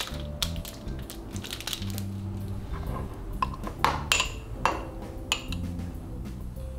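A small metal spreader clinking and scraping against a jar of whole-grain mustard as mustard is scooped out, in a run of sharp clicks and short scrapes. Soft background music plays underneath.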